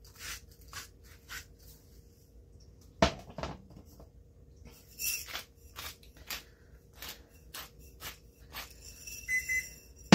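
Salt and pepper shakers tapped and shaken over a baked potato on a ceramic plate: a string of short, sharp clicks and taps, with one louder knock about three seconds in. Short high beeps from a kitchen timer start near the end.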